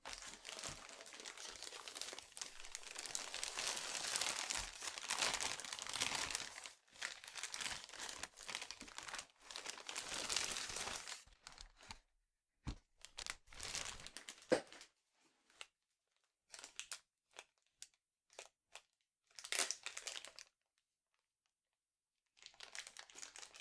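Packaging being unwrapped and handled: a long stretch of crinkling and tearing, then scattered short rustles and clicks, with a brief pause near the end before the crinkling starts again.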